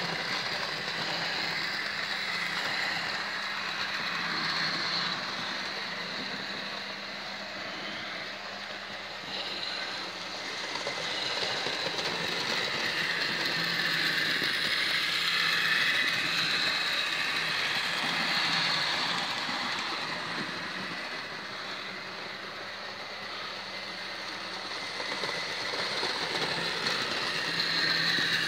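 Hornby OO gauge model locomotive (Henry) running along model railway track pulling coaches, its motor and wheels making a steady mechanical running sound. It grows louder as the train passes close, about halfway through and again near the end.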